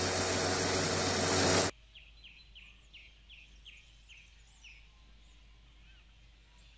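Electric blender running as it blends yogurt and cashew nuts into a paste, then cutting off suddenly a little under two seconds in. Afterwards a faint run of short falling chirps, about three a second, from a bird.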